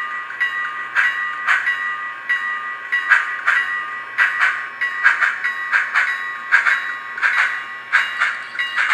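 Athearn Big Boy 4-8-8-4 model locomotive's sound decoder playing steam exhaust chuffs at a steady, moderate pace, about two to three a second, over a steady high tone. It comes through the model's small speaker, thin, with no bass.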